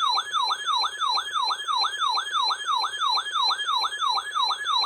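Electronic siren-like alert tone from a weather alert receiver, a rapid falling sweep repeating about four times a second. It cuts off abruptly near the end.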